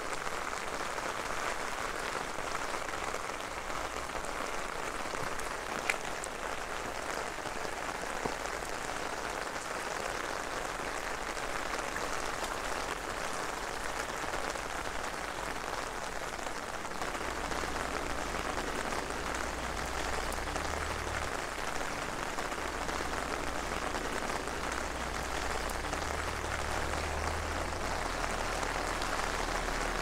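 Steady rain falling on wet pavement, an even hiss, with a sharp tick about six seconds in and a low rumble joining about halfway through.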